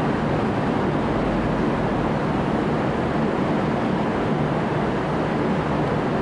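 A steady, even rumble of diesel railcars at a station, with a low hum under it, as a V/Line VLocity diesel multiple unit pulls away.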